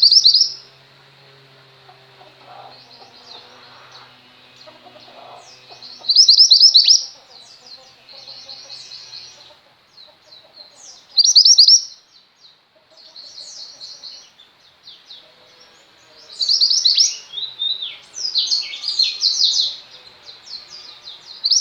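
Female mantenan gunung songbird singing in short bursts of rapid, high chirps and trills, a few seconds apart, coming thicker and faster near the end.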